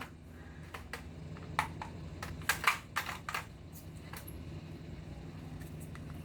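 A toy gun clicking as it is handled and fired: about nine sharp, irregular clicks and taps, bunched closest together in the middle. A faint steady low hum runs underneath.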